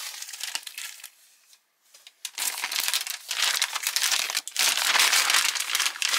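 Plastic bag of an MRE flameless ration heater crinkling as it is handled and flexed, with a pause of about a second near the start.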